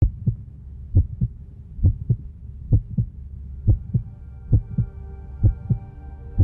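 Heartbeat sound effect: a steady lub-dub double thump a little more than once a second over a low drone, with held synthesiser-like chords fading in about halfway through.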